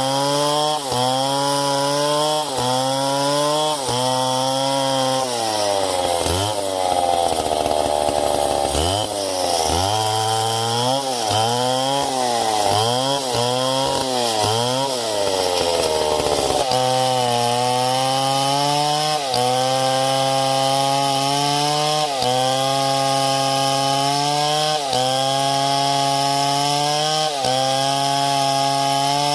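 Two-stroke chainsaw cutting through wood, its engine note sagging under load and recovering over and over. The swings come faster and deeper through the middle stretch.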